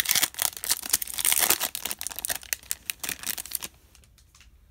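Foil wrapper of a 2019 Bowman baseball card pack being torn open and crinkled, a fast irregular crackling that stops about three and a half seconds in.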